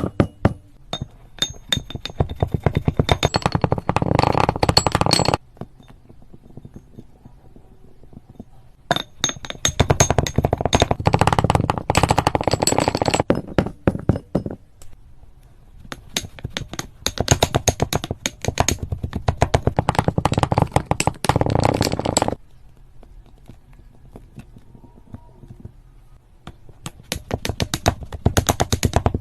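Slime being squeezed and worked by hand, giving fast runs of popping clicks in bursts of five or six seconds, with quieter pauses of a few seconds between them.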